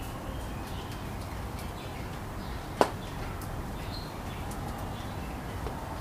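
Faint, scattered chirps of small birds over a steady low background of rain and distant city noise, with one sharp tap, such as a water drop striking near the recorder, a little under three seconds in.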